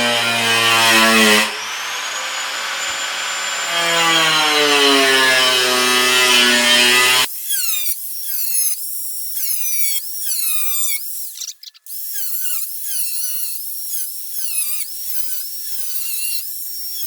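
An electric power tool's motor whining as it works, its pitch rising and falling with load. About seven seconds in, the low part of the sound drops out suddenly, leaving a thin, high squeal in a run of short falling sweeps.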